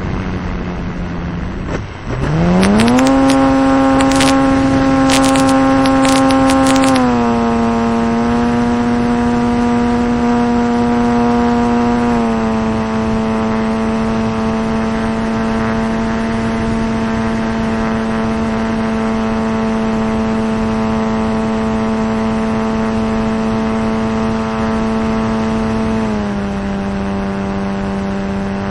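RC T-28 Trojan model plane's engine and propeller, heard from a camera on board: the engine note dips, then climbs quickly to full throttle about two seconds in for the takeoff, and holds a steady high drone that eases down in a few small steps as the plane flies on. Sharp crackling clicks come over it in the first seconds at full power.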